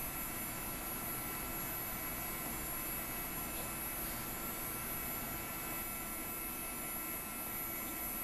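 Steady whirring hum of an SGI O2 workstation's cooling fan and drives while it reads an IRIX installation CD.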